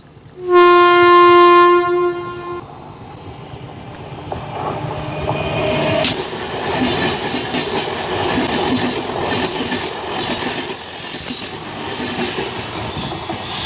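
Train horn sounding one long, loud blast about half a second in. Then a passenger train runs past close by, its wheels clattering rhythmically over the rail with a steady rushing noise.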